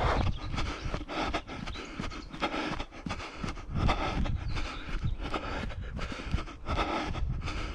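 A runner's breathing and footfalls on a grass-and-dirt path, the steps in a quick, steady rhythm.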